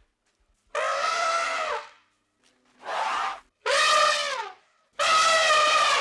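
An animal giving four drawn-out, wailing calls, each about a second long with short gaps between them.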